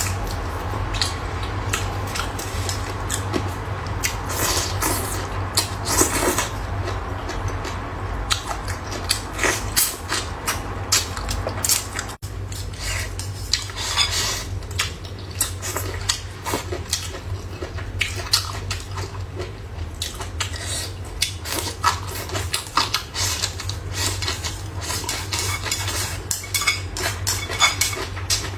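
Utensils clicking and clinking against bowls and plates over and over as a person eats a meal, with a steady low hum underneath.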